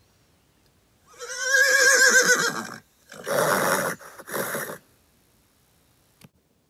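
A horse whinnying for nearly two seconds with a quavering pitch, followed by two short breathy bursts.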